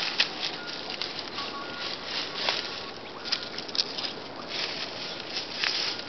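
Footsteps crunching and rustling through dry leaf litter and undergrowth, an uneven patter of many small crackles. A few faint, short, thin high tones come through now and then.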